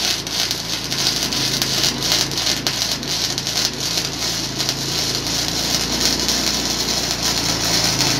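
Gasless flux-core MIG arc welding with a YesWelder MIG205DS and .030 flux-core wire: a steady, dense crackle as the arc lays a bead, cutting off right at the end when the trigger is released.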